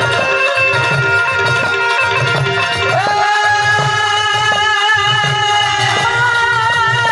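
Gujarati devotional garba music: held harmonium chords over a steady drum beat. About three seconds in, a singer slides up into a long wavering note, and a new held note follows near the end.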